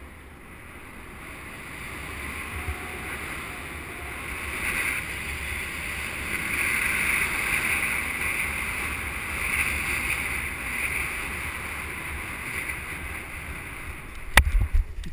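Wind rushing over a GoPro camera's microphone as a paraglider descends, swelling and easing through the glide. Near the end a sharp loud thump as the pilot's feet hit the ground on landing, followed by a couple of heavy footfalls.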